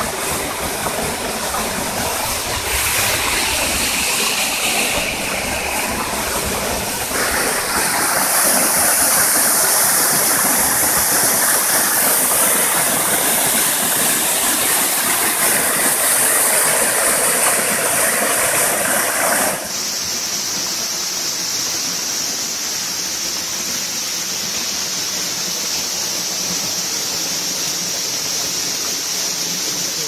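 The Millomeris waterfall: water falling and rushing steadily over rock, growing louder about seven seconds in. About twenty seconds in it changes abruptly to the steadier, hissier run of a shallow mountain stream over stones.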